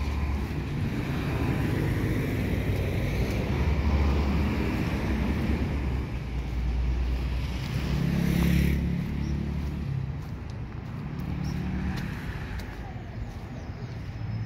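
City street traffic: motor vehicles running and passing, with one louder pass about two-thirds of the way through.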